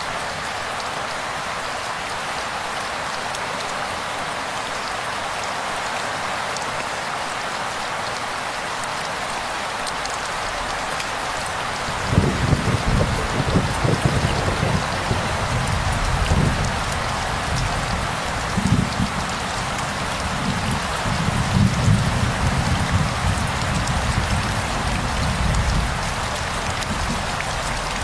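Steady heavy rain falling on leaves. About twelve seconds in, a low, uneven rumble of thunder joins it, swelling and fading for about fourteen seconds.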